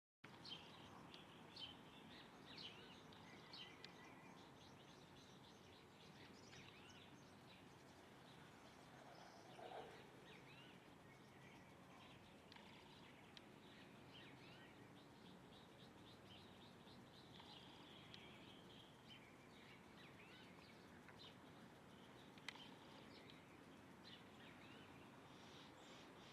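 Faint chorus of small birds chirping: many short, high calls over a steady hiss, with a brief lower-pitched sound about ten seconds in and a single sharp click near the end.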